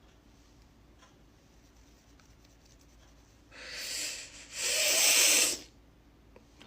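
A sneeze: a noisy drawn-in breath about three and a half seconds in, then a short pause and the loud sneeze itself, lasting about a second.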